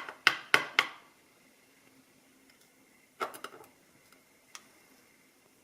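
Small metallic clicks and taps of padlock parts being handled during disassembly: four quick clicks in the first second, then a short cluster about three seconds in.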